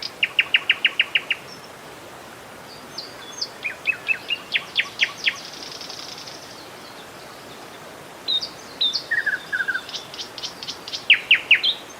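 Songbirds singing in fast runs of sharp, evenly spaced chirps, with pauses between the phrases, over a steady murmur of flowing river water.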